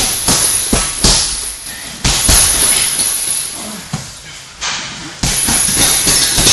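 Scuffling of grappling on a hard floor: bodies and limbs sliding and knocking against the floor, with a run of sharp thumps and a rustling hiss between them.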